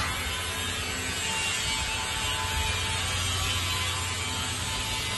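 Steady machinery noise with a low, even hum.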